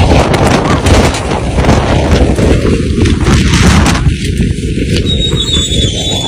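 Storm-force wind blasting a phone microphone: loud, distorted rumbling with constant crackling pops as the gusts overload it.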